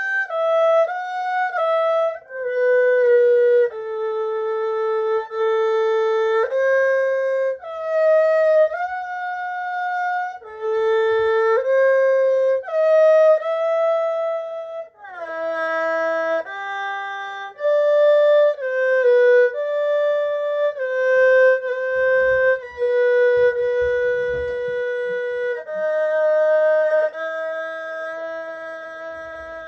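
HuQiu 5121 erhu played solo: a slow melody of held bowed notes, ending on a long note that fades a little.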